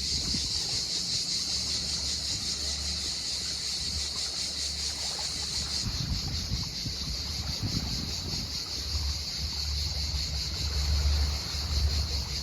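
Cicadas singing in a steady, high, shrill buzz, with wind rumbling on the microphone underneath.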